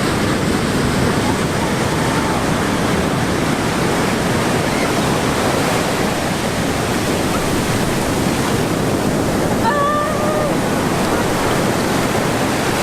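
Big ocean surf breaking on a beach: a steady, loud rush of waves. A brief faint call rises over it about ten seconds in.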